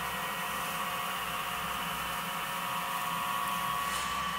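Wood lathe running steadily at about 1200 RPM, a steady motor whine, with the hiss of a paper towel pressed against the spinning walnut dowel to build heat and cure the friction polish.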